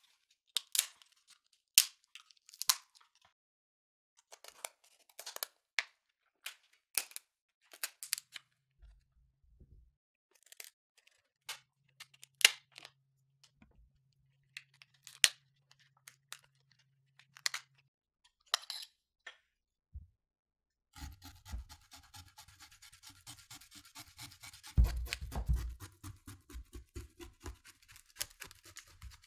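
Kitchen shears snipping and cracking through lobster shell: separate sharp snips, a second or so apart. About two-thirds of the way through, a dense continuous rasping takes over as a blade saws along a butternut squash, loudest a few seconds after it starts.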